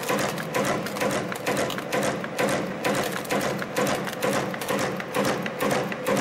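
YHM FB-210 CNC wire forming machine running production, its tool slides clicking and knocking in a fast, even rhythm of about two cycles a second as they bend 1.3 mm wire at 130 pieces a minute.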